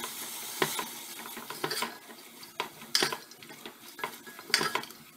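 A spoon stirring sliced onion rings in an open pressure cooker pot, with irregular scrapes and knocks against the pot over a faint sizzle of the onions in a little hot fat.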